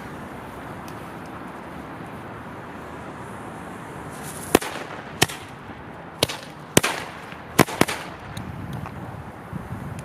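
Funke Knallfrosch B jumping-jack firecracker going off: six sharp bangs in about three and a half seconds, starting about four and a half seconds in, with hissing between them.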